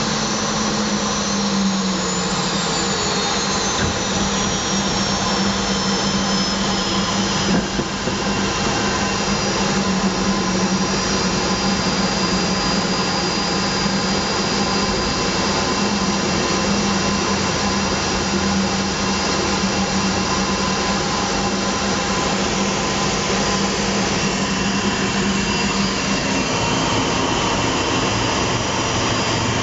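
Jet engine running at high power, heard from inside the cockpit as the aircraft moves along the runway: a steady, loud rushing noise with a low hum and a high whine. The whine rises and falls in the first few seconds.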